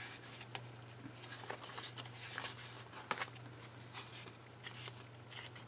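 Faint scattered taps, clicks and rustles of paper, stickers and pens being handled on a desk, over a steady low hum.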